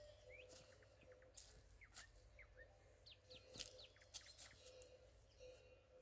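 Faint bird chirps: short rising and falling calls from small birds, scattered through, with a few soft clicks.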